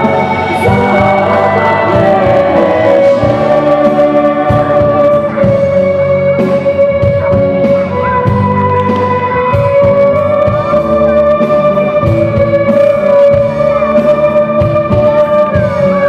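Live band playing a Polish Christmas carol: a sustained, wavering melody line over guitar and chordal accompaniment.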